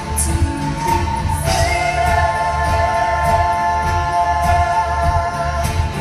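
Live band music in a Mongolian folk-fusion style. Long held, wavering melody notes, with singing, lift to a higher line about a second and a half in, over a steady drum beat and bass.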